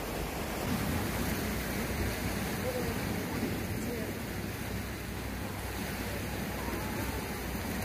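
Sea surf washing and breaking over shoreline rocks, a steady rushing noise.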